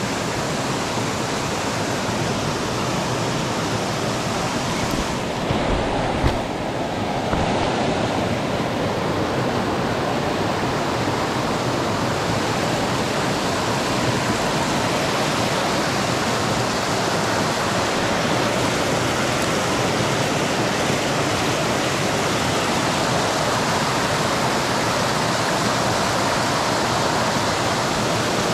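Creek water rushing over rocks in a steady, even rush, with a couple of dull low bumps about six seconds in.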